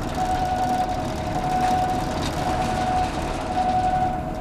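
Caged construction work lift running in a deep vertical shaft: a steady high tone with a fainter overtone above it, over an even rumbling hiss.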